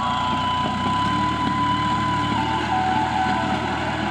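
Massey Ferguson 260 tractor's diesel engine running steadily under load, pulling a disc harrow through dry soil.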